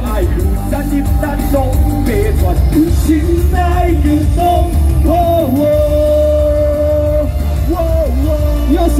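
Live amplified performance of a Taiwanese-language pop/hip-hop song: a male voice singing a melodic line over a backing track with heavy bass, holding one long note about halfway through.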